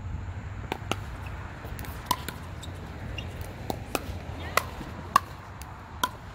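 Pickleball rally: paddles hitting the hard plastic ball in a string of sharp pops, each with a short ringing tone, spaced roughly half a second to a second apart, the loudest a little past five seconds in.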